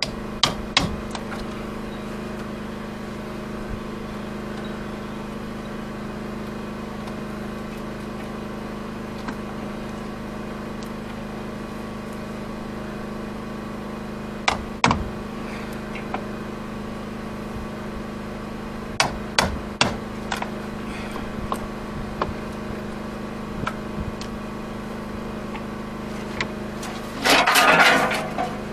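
A hammer striking a steel punch held against a wooden boat's planking, knocking out the old fastenings: sharp metallic strikes, single or in quick groups of two to four, with long pauses between. A steady low hum runs underneath, and near the end a louder rough burst lasts about a second.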